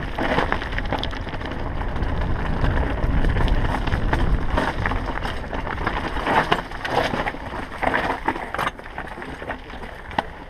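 Mountain bike rattling over a rocky, loose-stone trail on a descent, with irregular knocks of the wheels and frame on rocks and tyres crunching over gravel. A low wind rumble on the microphone runs underneath, heaviest in the first half.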